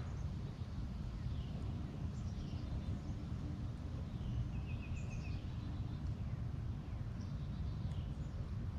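Faint songbird calls, scattered short chirps and a quick run of repeated notes about five seconds in, over a steady low rumble with a faint hum.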